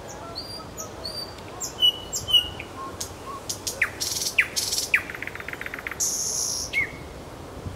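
Thrush nightingale singing a phrase of short high whistles, then sharp downward-swept notes, a fast rattle and dry rasping notes, ending in a falling note near the end.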